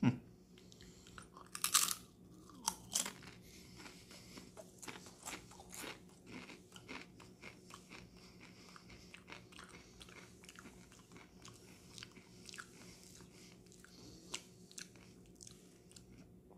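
Crunching of a Doritos tortilla chip being bitten and chewed: a few loud crunches about two and three seconds in, then a long stretch of quieter, irregular chewing crunches.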